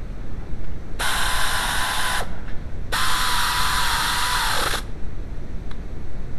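A handheld power tool runs twice, once for about a second and then for about two seconds, each time with a steady whine over a hiss. The whine drops in pitch as the tool spins down at the end of the second run.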